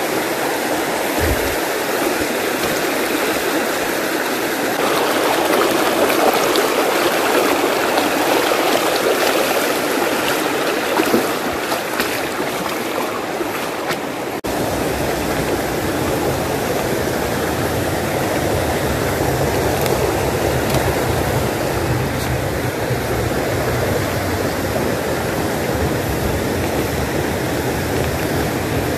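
Shallow rocky stream running over stones, a steady rush of water. About halfway the sound changes abruptly and a low rumble joins the water.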